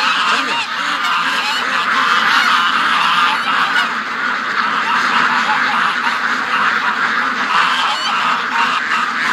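A large flock of domestic ducks, mostly white Pekins, quacking all at once in a dense, continuous chorus.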